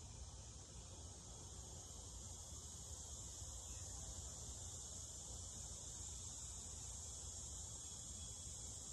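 Faint, steady high-pitched trilling of crickets, with a low hum beneath.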